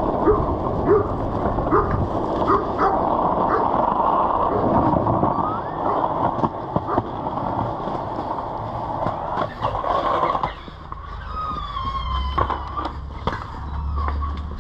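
Skateboard wheels rolling over rough, cracked pavement, a steady grinding noise with sharp clicks as the wheels cross cracks, which stops abruptly about ten seconds in. A quieter stretch with a few thin chirps follows.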